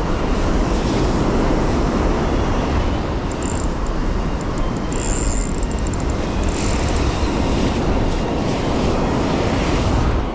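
Wind buffeting the microphone over the steady wash of breaking surf on a sandy beach, loud and rumbling, dropping off suddenly at the very end.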